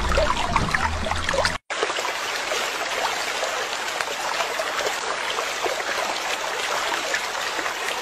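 Steady sound of a babbling stream, running water without a break, cut off for a moment about a second and a half in and then going on unchanged.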